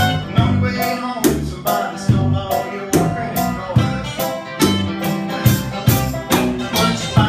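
Live blues-rock band playing: electric guitar and bass guitar over a steady beat from a cajón and hi-hat, with a man singing lead.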